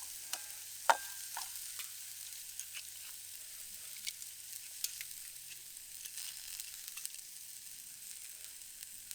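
Steak frying in a pan over a wood-burning camp stove, a steady high sizzle with scattered sharp clicks, the loudest about a second in.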